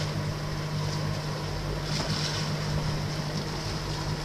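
Steady low hum of a fishing boat's engine or onboard machinery, with wind on the microphone and water noise over it; the hiss swells about two seconds in.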